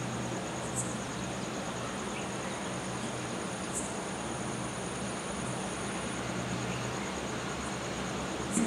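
Night-time crickets trilling: a thin, high, rapidly pulsing trill over a constant hiss and low hum, with a few faint clicks.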